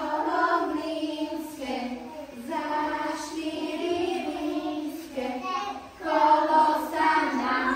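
A group of young children singing a song together, with a woman's voice singing along, in phrases with short breaks between them.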